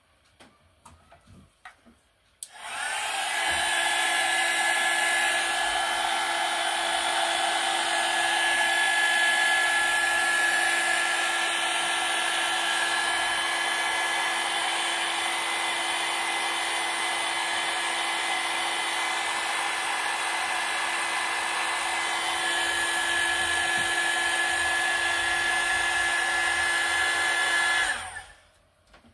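Hand-held hair dryer blowing steadily with a steady whine, switched on about two seconds in and off shortly before the end, drying a freshly thrown miniature clay vase on the pottery wheel.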